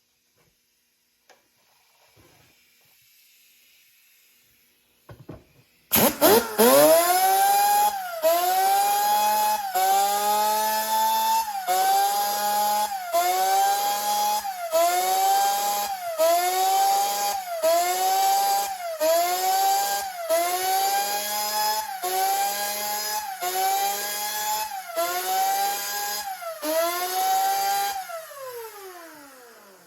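Electric grinder spinning up, its motor dipping in pitch about every one and a half seconds as each raker (depth gauge) on a chainsaw chain is ground down with a quick touch, then spinning down with a falling pitch near the end.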